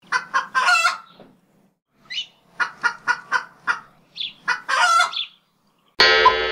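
Chicken clucking in a run of short calls, with one longer call about five seconds in. A loud horn blast starts near the end.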